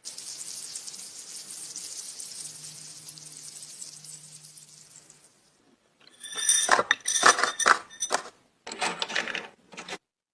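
A hiss that fades away over about five seconds, then a run of small metallic clicks and clinks with a short ring, as of small metal parts being handled and fitted together.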